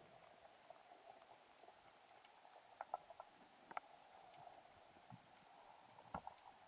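Near silence underwater: a faint steady hum with a few scattered clicks, the clearest about three and four seconds in and again near the end.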